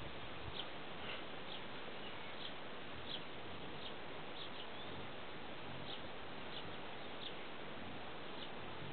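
Small birds chirping: short high chirps every second or so over a steady background hiss.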